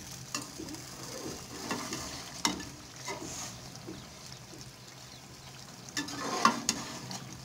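Metal ladle stirring chicken achar gosht in an aluminium pot, scraping and knocking against the pot a few times, most sharply near the end. Under it the curry sizzles faintly as its last liquid cooks down.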